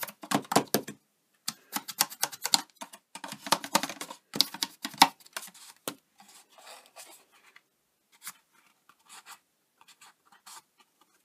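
Bone folder scraped hard along the creases of a cardstock box in quick strokes, then softer rustling and tapping of the card as it is handled, easing off about six seconds in.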